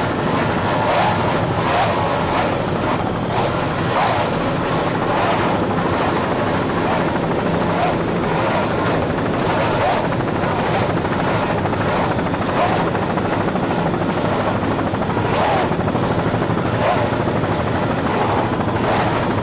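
Steady, loud engine drone that holds at one level without revving or breaks.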